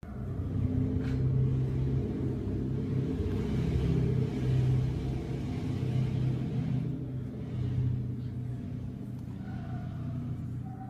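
Young big cats growling in a low, continuous rumble as they wrestle and mouth each other, easing off over the last few seconds.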